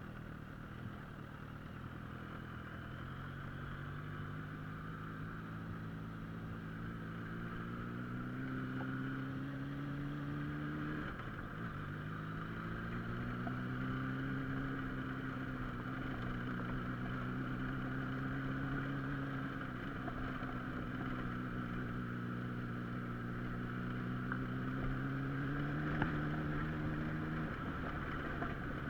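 A vehicle engine running while driving, its pitch slowly rising as it pulls. The pitch breaks and drops at a gear change about eleven seconds in and again near the end, over a steady road and wind noise.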